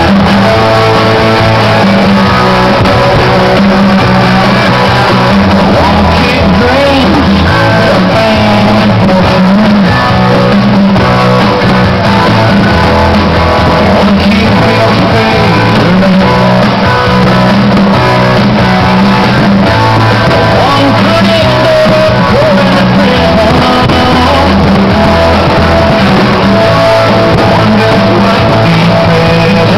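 Loud rock music with a singer and electric guitar, played over the show's sound system.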